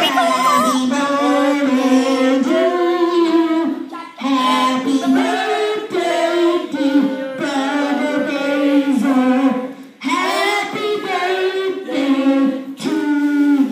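A child singing into a microphone, holding notes in long phrases with short breaks about four seconds in and again near ten seconds.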